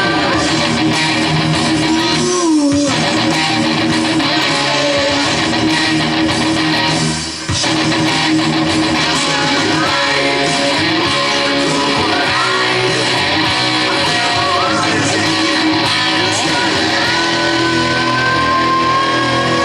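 Electric guitar played through a Boss GT-6 multi-effects processor, heard in a loud live music mix. There is a brief break about seven seconds in, and a long rising note near the end.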